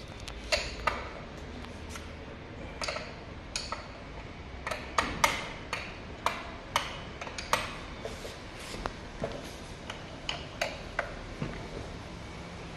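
Irregular metallic clicks and clinks from hand tools and small metal parts being handled during wheel work, about twenty separate hits with a short ring, some in quick runs.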